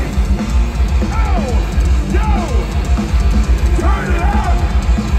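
Live heavy metal band playing at full volume: pounding drum kit and distorted electric guitars, with high squealing glides that rise and fall about once a second.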